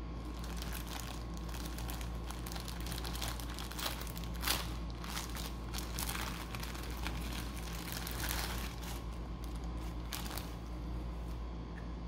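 Clear plastic packaging bag crinkling and rustling as it is handled and opened to take out a nylon knife pouch, in irregular crackles with one louder rustle about four and a half seconds in. A steady low hum sits underneath.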